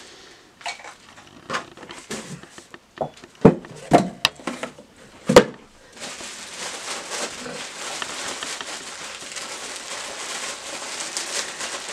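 Packaging being handled while unboxing: a few knocks and taps of items and a small cardboard box, then from about six seconds in, steady crinkling of a clear plastic bag being opened.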